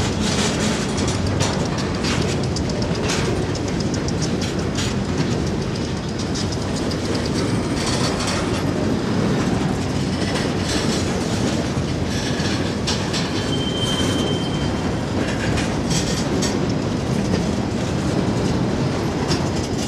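Freight train's hopper cars rolling past, their steel wheels clicking and clanking over the rails under a steady rumble, with a short high wheel squeal about two-thirds of the way through.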